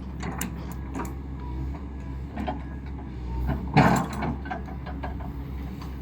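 Excavator's diesel engine running steadily as the machine moves through its hydraulic motions, with scattered clicks and knocks and one louder thump about four seconds in.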